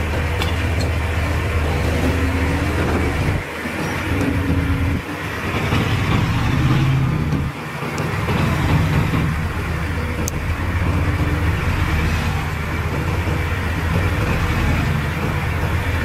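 Diesel engine of heavy earthmoving machinery running steadily under work. It drops away briefly three times in the first half, with a few faint metallic clinks.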